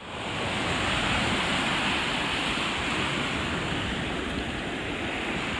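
Ocean surf washing onto a sandy beach: a steady rushing wash that fades in over the first second.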